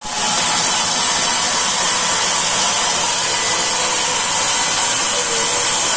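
Sawmill saw running steadily, a constant high hiss that does not rise or fall.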